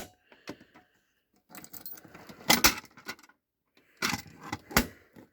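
A prop BG-12 fire alarm pull station being pulled and opened, with clicks and clattering of its handle and cover and no alarm sounding. A sharper knock comes about two and a half seconds in, and another click near the end.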